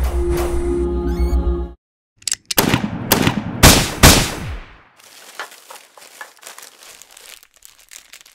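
A rapid, even rattling buzz for about a second and a half, then loud rustling and crinkling of tissue paper in quick swishes as the box's paper lining is pulled open, settling into softer crinkling.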